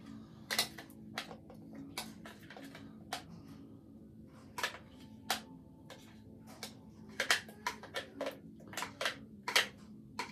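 A utensil knocking and scraping inside a plastic blender jar as thick ice cream milkshake is worked out into a cup: a string of irregular sharp clicks and taps over a faint steady hum.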